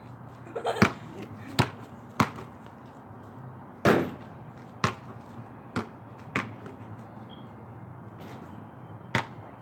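Basketball bouncing on pavement: about eight sharp single bounces at uneven intervals, with one louder, longer knock about four seconds in.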